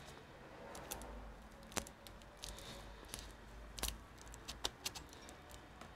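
Faint handling noise: small sharp clicks and light scrapes, irregularly spaced, as gloved hands and a metal pick work at the laptop's battery connector to disconnect the battery.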